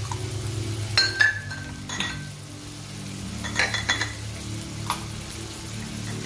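Metal spatula clinking against a metal wok a handful of times while greens are stir-fried: about a second in, at two seconds, and a few times near four and five seconds. Faint sizzling and background music run underneath.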